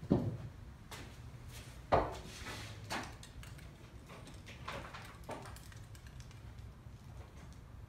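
A few scattered knocks and clunks of tools or objects being handled and set down. The loudest is right at the start, another comes about two seconds in, and smaller ones follow.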